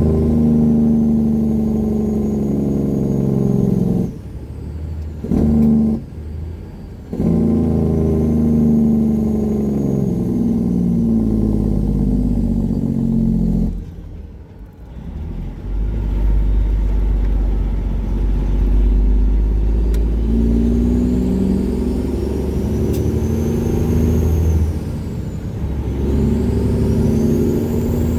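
Detroit Series 60 diesel of a 1999 Peterbilt 379 running loud through 7-inch straight pipes under load. The engine note drops away briefly about three times, as at gear shifts. A high turbo whistle rises and falls over it, several times near the end.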